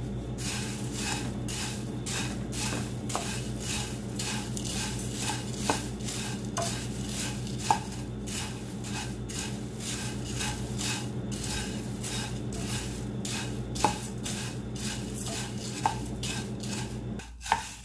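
Wooden spatula stirring dry puffed rice in a non-stick pan, a rustling scrape about twice a second with the odd sharper knock of the spatula against the pan, as the puffed rice is dry-roasted until crisp. A steady low hum runs underneath and drops out shortly before the end.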